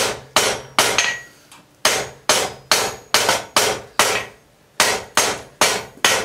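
Hand hammer striking red-hot rebar on an anvil: a steady run of sharp blows, about two and a half a second, with two short pauses about one and four seconds in. The squared bar is being knocked round at the corners and drawn into a taper.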